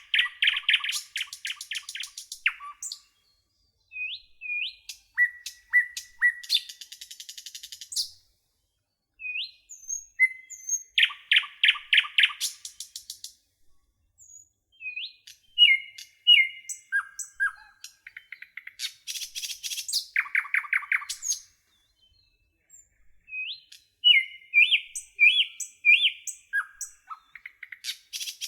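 Songbirds singing: bursts of rapid trills and short whistled chirps, several phrases in a row with brief pauses between them.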